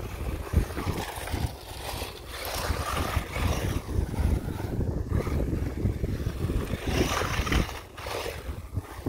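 WLToys 12427/12428 electric RC truck driving over brick paving and dry leaves: its motor and tyres get louder about two seconds in and again around seven seconds, over a constant low wind rumble on the microphone.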